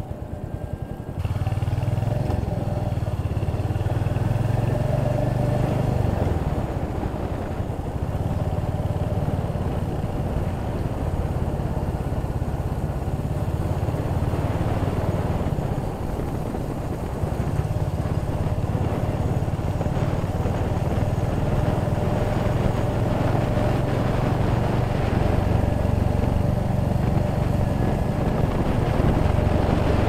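Royal Enfield Hunter 350's single-cylinder engine running steadily under way on the road. It gets clearly louder about a second in and then holds a steady, low running note.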